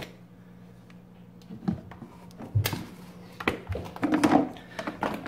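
Hard plastic knocks and clunks as a Shop-Vac wet/dry vacuum is unlatched and its motor head lifted off the canister. There are a few separate knocks, the loudest about two and a half seconds in.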